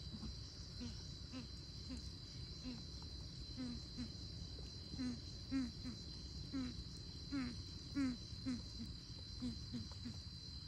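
Coucal calling: a run of short, low, slightly falling hoots, irregularly spaced about two a second and loudest in the middle, over a steady high insect drone.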